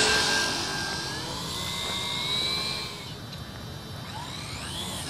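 Large electric RC airplane's motor and propeller whining as it flies past. The pitch dips about a second in and the sound fades away after about three seconds.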